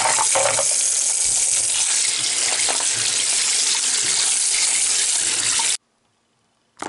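Tap water running into a metal bowl of acorns as they are rinsed by hand, a loud, steady rush. It cuts off abruptly near the end, and a single sharp knock follows.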